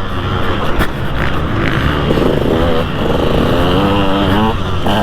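2003 KTM 200 SX two-stroke motocross engine being ridden hard: the revs drop off and then pick up again, rising and holding, with a few sharp clacks in the first two seconds.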